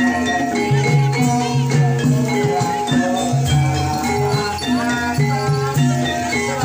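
Javanese gamelan music accompanying an ebeg (kuda kepang) horse dance: a repeating pattern of held metallophone-like notes over drumming, with a shaken rattle.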